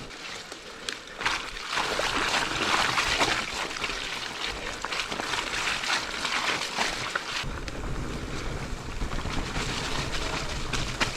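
Mountain bike riding fast down a dirt trail: tyres rolling and crunching over the ground, with the chain and frame rattling over bumps and wind on the microphone. A heavier low rumble comes in about seven seconds in.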